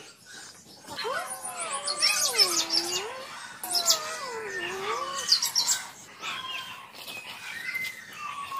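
Cats yowling in a fight standoff: two long, low, wavering moans that rise and fall, then fainter calls, with birds chirping high above.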